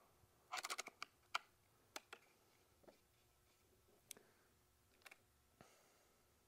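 Faint, scattered clicks and taps of hands handling an RC mega truck's chassis parts, wiring and wheels, with a quick flurry of clicks about half a second in and single clicks after.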